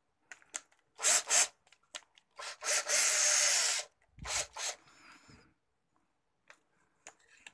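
Scraping and rubbing handling noises as a drill bit is fitted into a cordless drill's keyless chuck, its plastic sleeve turned by hand. A few short scrapes, then one longer rasp of about a second in the middle, with faint clicks near the end.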